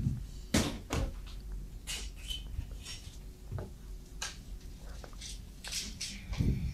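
Irregular knocks, clicks and rustles of objects being handled in a room, about one a second, the loudest a dull thump near the end.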